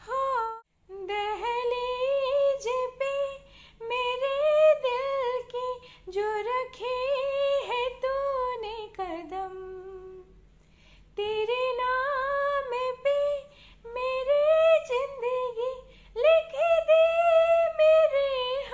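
A woman singing a melody solo and unaccompanied, in long gliding phrases, pausing for about a second around ten seconds in.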